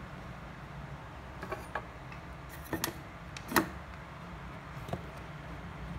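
A few light clicks and taps of small tools being picked up and set down on a repair bench, the sharpest about three and a half seconds in, over a steady low hum.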